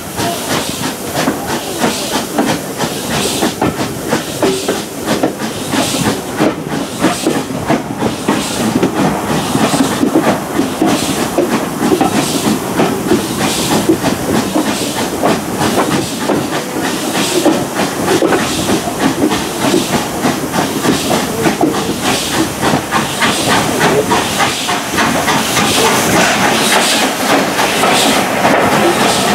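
Steam train heard from an open carriage window: the locomotive's rhythmic exhaust beats and steam hiss over the clatter of carriage wheels on the rails, growing a little louder near the end.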